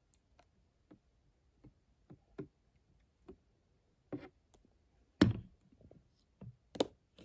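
Plastic acrylic paint bottle being handled and set down on a desk: faint scattered ticks and taps, then two louder knocks, about five seconds in and again near the end.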